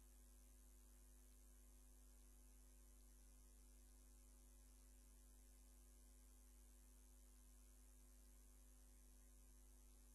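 Near silence: a faint, steady hum and hiss with no other sound.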